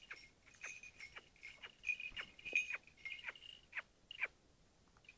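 Small bell worn by a hawk jingling in a quick, irregular series of short rings as the hawk tears at prey on the fist.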